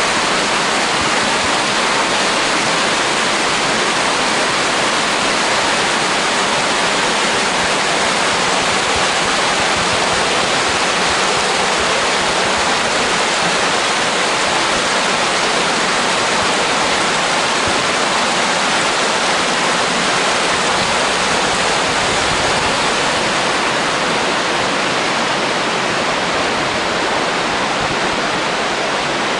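Creek water rushing over rocks and low rocky ledges in small rapids: a steady, unbroken rush of white water.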